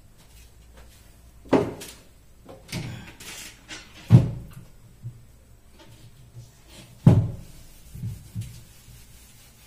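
Kitchen cabinet doors being handled and knocking shut: three sharp bangs about two and a half seconds apart, the middle one loudest, with lighter knocks between them.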